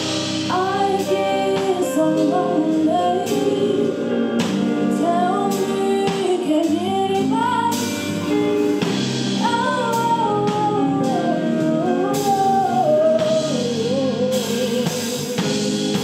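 A woman singing an R&B song with long, sliding notes, backed by a live band on electric guitar, bass guitar, drum kit and keyboard.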